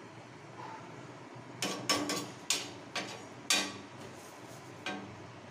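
Metal kitchen utensils clinking and knocking against a pan and steel containers: about seven sharp clacks from about one and a half seconds in to near the end, some ringing briefly.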